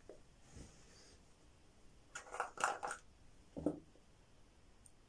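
Faint handling noises: a few short scraping rustles about two seconds in, then a brief, lower thud-like sound about a second later.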